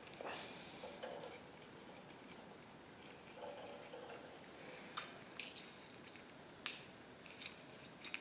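Faint scratching and rubbing of a small flux brush worked into the end of a metal rod, with several light clicks and taps in the second half.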